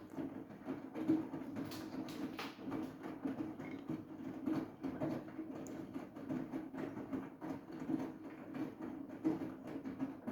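Siemens iQ700 washing machine running a wash programme: a steady hum that swells and fades, with many faint, irregular clicks and patter.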